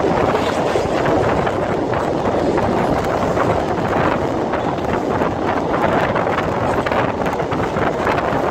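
Steady rumble and rattle of a passenger train at speed, heard from inside the carriage as it crosses a steel bridge: wheels running on the rails with a dense clatter throughout and rushing air.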